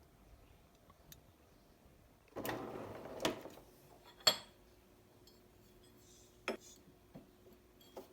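Kitchen dishes and utensils being handled: a short scrape, then a sharp clink about four seconds in and a few lighter knocks.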